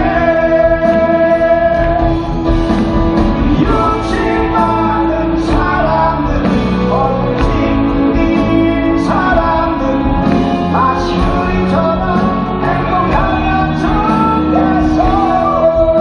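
Live band with keyboards, electric guitars and drums accompanying male vocals singing a pop ballad, recorded from the audience in a large concert hall.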